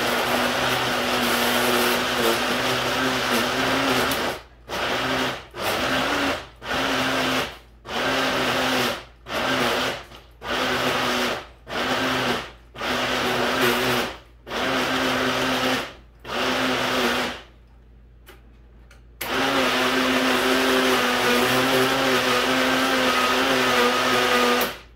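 Countertop blender chopping green chilies, garlic and oil. It runs steadily for about four seconds, is then pulsed on and off about ten times, pauses briefly, and runs steadily again for about five seconds before stopping.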